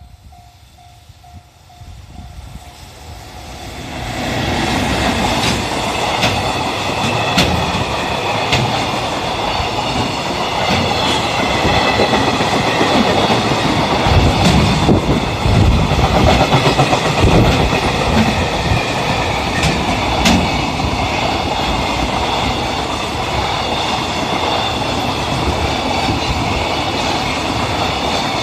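Freight train hauled by a JR Freight EF210 electric locomotive passing over a level crossing: it builds up from about three seconds in, then a long loud run of wagon wheels clattering over the rail joints, with sharp clicks now and then. A level crossing warning bell rings with a repeating tone at the start, before the train drowns it out.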